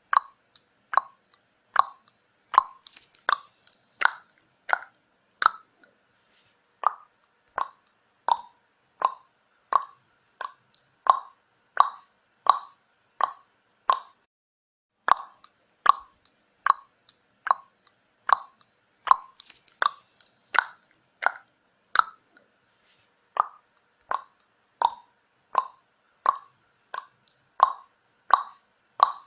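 Tongue clicks against the roof of the mouth: a steady run of sharp clicks, about one and a half a second, with a brief break near the middle.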